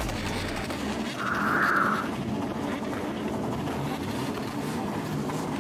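Cars running amid the noise of an outdoor car meet, with a short, loud burst of noise a little over a second in.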